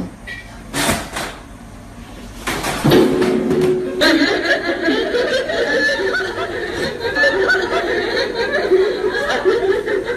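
A chair scrapes and thumps as it is jerked away and a man falls to the floor, giving two knocks in the first few seconds. Then several people laugh loudly and keep laughing.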